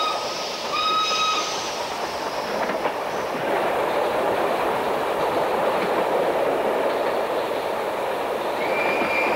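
Train running on rails with a steady rumble. A whistle gives a short blast at the very start and another about a second in. A long, slightly falling whistle begins near the end.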